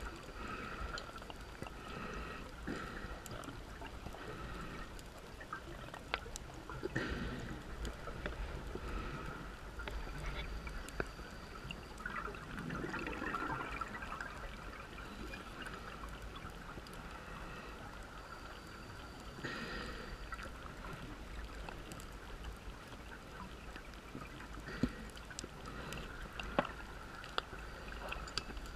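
Scuba regulator exhaust bubbles gurgling underwater, in bursts every few seconds with the diver's breathing, over a steady hiss, with a few sharp clicks.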